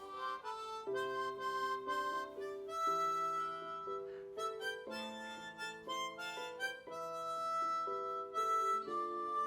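Harmonica playing a slow melody in chords, several reed notes sounding together and changing every half second or so, some held for over a second.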